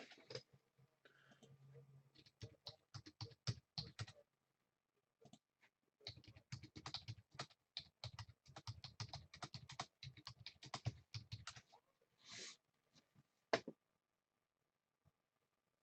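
Faint typing on a computer keyboard: two runs of quick key clicks, the second and longer one lasting several seconds, then a brief hiss and one sharp click near the end.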